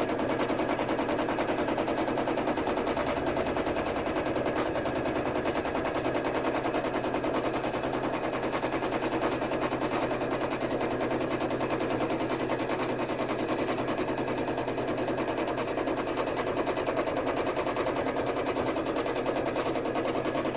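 Sewing machine stitching fabric at a fast, steady speed, a rapid even run of needle strokes, stopping abruptly near the end.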